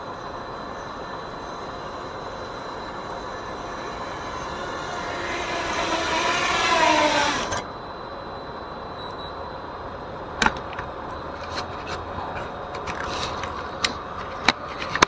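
FPV racing quadcopter's motors whining through the goggles' microphone, growing louder and rising in pitch as the drone comes in, then cutting off abruptly about halfway through. A few sharp clicks and knocks follow near the end.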